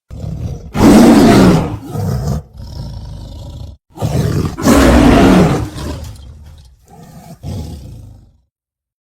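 Two big-cat roar sound effects used for an animated cat villain. Each builds to a loud roar with a falling pitch, then trails off into lower, quieter growling. The first peaks about a second in and the second about five seconds in, and the sound stops shortly before the end.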